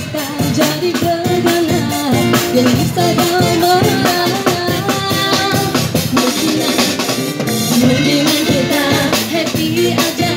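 A woman singing a melody into a microphone with a live band, a drum kit keeping the beat.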